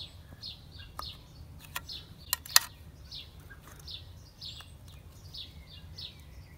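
A bird chirping in a quick, steady run of short falling chirps, about three a second. Over it come a few sharp clicks as a utility knife scores the old braided leak-off hose and it is worked off a diesel injector's plastic nipple. The loudest click is about two and a half seconds in.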